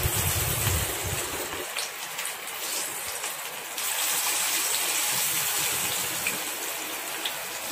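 Batter-coated marinated prawns sizzling as they deep-fry in hot oil, with more pieces dropped in. The sizzle grows louder a little under four seconds in.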